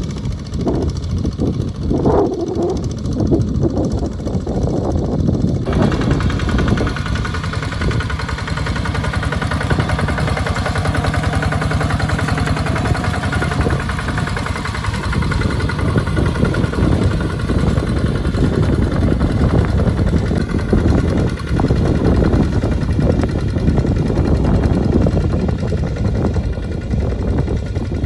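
Two-wheel walking tractor's diesel engine running steadily while it pulls a plow through a wet rice field. A brighter hiss joins it about six seconds in.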